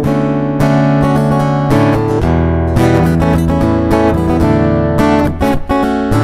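Gusta GDX130C dreadnought acoustic-electric guitar, with a solid Sitka spruce top and rosewood back and sides, played plugged in through its Fishman Isy301 pickup. Chords are strummed, changing several times.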